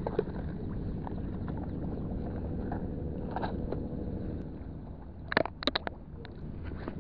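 Steady low rumble of wind on the microphone, with a quick cluster of sharp clicks and knocks about five and a half seconds in as fishing gear is handled.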